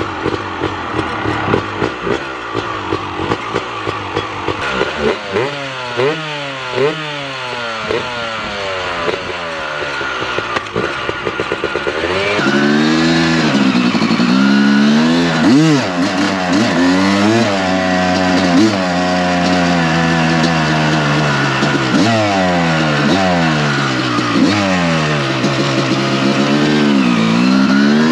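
1994 Honda CR250 two-stroke engine revving and pulling through the gears: repeated rising runs in pitch, each dropping off at a shift. It is louder and closer from about twelve seconds in.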